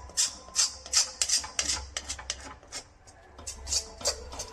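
A utensil scraping round the bottom of a pan as a thick, cooking jaggery mixture is stirred steadily to keep it from sticking, about two to three scraping strokes a second, easing off briefly around three seconds in.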